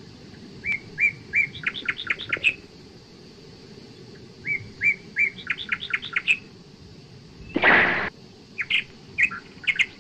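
Bird calls: two runs of short, high chirps, each quickening as it goes, then a short harsh burst about seven and a half seconds in, and a few more chirps near the end.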